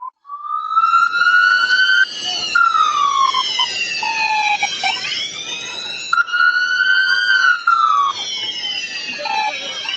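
Police car siren on a slow wail, its pitch rising and falling twice, over steady rushing noise.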